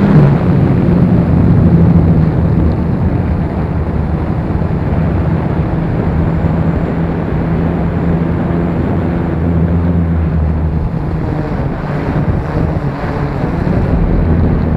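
Multirotor drone's electric motors and propellers droning steadily from on board, the pitch wavering slightly as the motors adjust, with strong wind buffeting the microphone.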